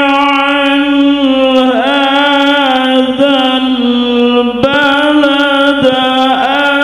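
Male qari reciting the Quran in the melodic tilawah style into a handheld microphone, holding long drawn-out notes with ornamented turns between them and a short break for breath about two-thirds of the way through.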